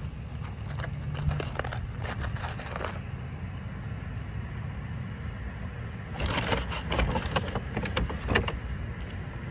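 Crackling rustle of a cardboard McDonald's carton and a paper takeout bag being handled, in two spells, the second near the end and louder. A steady low rumble runs underneath.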